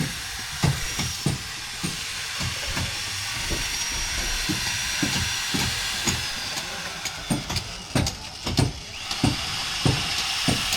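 Footsteps at about two a second under a steady hiss.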